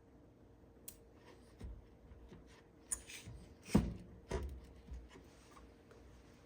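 Quiet rustling and small clicks of hands handling a printed label-maker label and pressing it onto a battery, with two louder short knocks a little under four seconds in and about half a second later.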